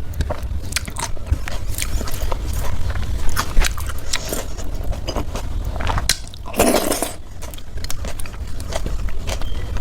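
A person chewing and eating rice and vegetable dishes close to the microphone, with many short wet mouth clicks and smacks and a louder burst of sound about six and a half seconds in, over a steady low hum.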